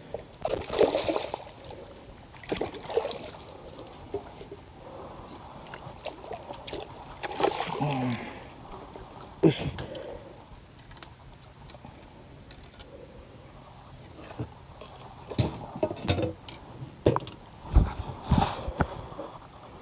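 Steady high-pitched drone of insects from the mangroves. Scattered short knocks and thumps sound over it, several close together near the end.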